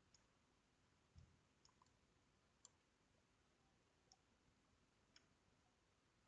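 Near silence with a few faint, irregularly spaced computer mouse clicks.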